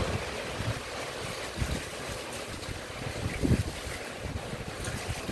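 Steady hiss of rain falling, with gusts of wind buffeting the microphone in low rumbles, strongest about one and a half and three and a half seconds in.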